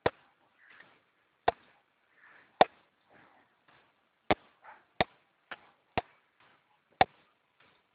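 A series of about eight sharp, very short knocks at uneven intervals, with fainter scratchy rustles between them.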